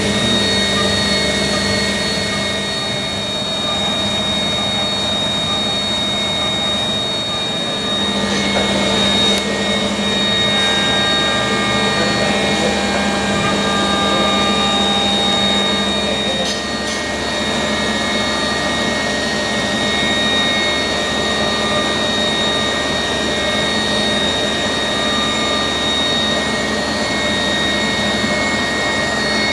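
Five-axis CNC machining centre milling an A5052 aluminium block: a steady spindle whine with several high tones over a continuous rushing noise from the cut, without a break.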